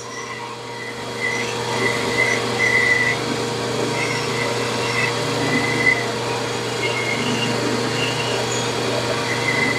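Drill press spinning a sanding drum while a wooden corbel is pressed and worked against it, with a shop vacuum pulling dust through the table: a steady motor hum and rush of air. Short high whistles come and go over it.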